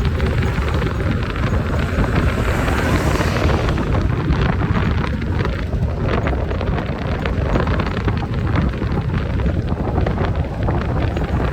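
Wind buffeting the microphone: a loud, steady low rumble with constant crackling.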